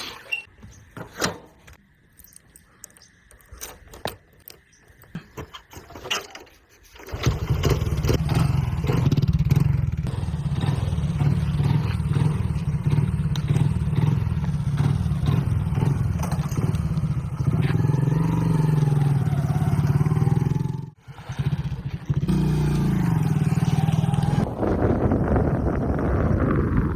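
JCB backhoe loader's diesel engine running loud and steady after a quieter start with scattered clicks, its pitch rising and falling twice as it revs under the work. It cuts out briefly about three-quarters of the way through.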